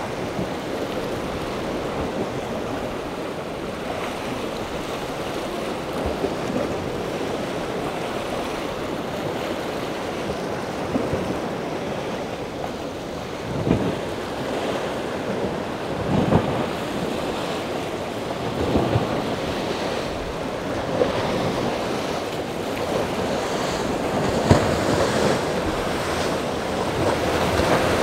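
Rushing, splashing water from a large motor yacht's bow wash and the surrounding chop, with wind buffeting the microphone. A few short louder thumps stand out in the second half.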